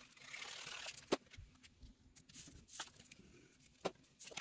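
Quiet handling of paper and cardstock on a tabletop: a soft rustle in the first second, then a few scattered light taps and clicks as pieces are set and pressed down.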